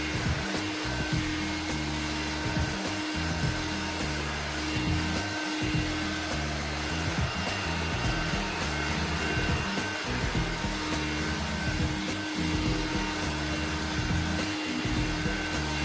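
Cordless handheld 120 W vacuum cleaner running steadily at its single suction setting, its motor giving a constant whine over the rush of air as it is worked over carpet.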